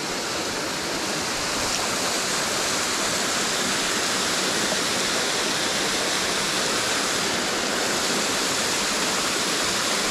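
Small mountain waterfall pouring into a rocky creek pool: a steady rush of falling and splashing water, a little louder after the first second or two.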